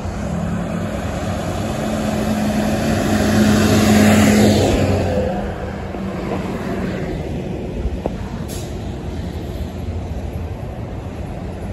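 Highway traffic with a tractor-trailer passing close by: engine hum and road noise swell to a peak about four seconds in, then fade to a steady traffic rumble.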